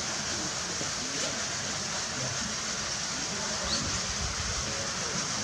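Steady rush of running water, with a faint murmur of visitors' voices underneath.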